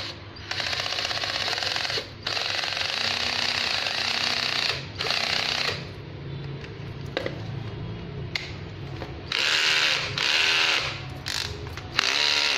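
Ryobi BD123 12 V cordless drill-driver running in about five bursts with its chuck gripped in the hand, with a quieter, lower-pitched stretch in the middle. It runs on a battery that has dropped to about 10 V.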